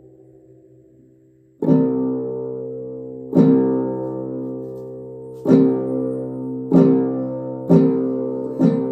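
Plucked string instrument strummed in full chords, six strokes at uneven intervals, each ringing on with a long decay.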